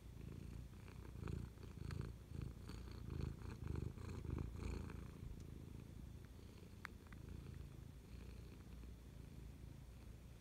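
Domestic cat purring close to the microphone, a low pulsing rumble, stronger in the first half with faint clicks over it, then steadier and softer.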